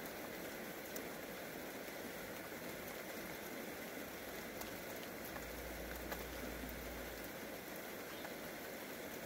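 Steady rain falling, an even hiss with scattered faint drop ticks. A low rumble joins in for about two seconds past the middle.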